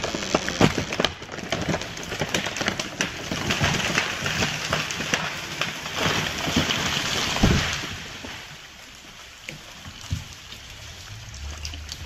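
A large tree falling: wood cracking and snapping at the stump, then branches crashing and crackling through the surrounding trees as it goes over, with a heavy thud about seven and a half seconds in as the trunk lands. Afterwards a few smaller knocks as debris settles.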